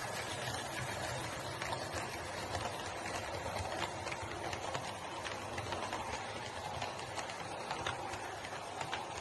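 Model freight train rolling past on the track: a steady rumble of wheels and motor, with scattered sharp clicks as the wheels cross rail joints.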